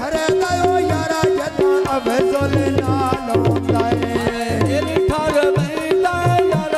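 Live Punjabi folk mahiya music, instrumental passage: tabla drumming a steady rhythm under a bending melody line.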